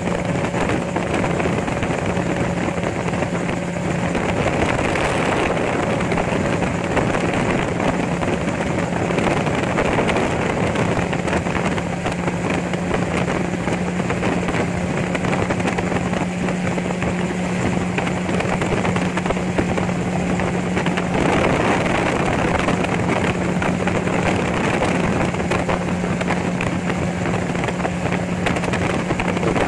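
Gyrocopter in flight: the steady drone of its engine and propeller, mixed with wind rush.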